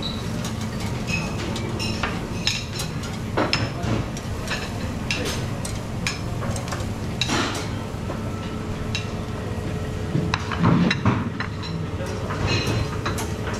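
Cooking utensils clinking and scraping against metal pans, with scattered sharp clicks over a steady low hum.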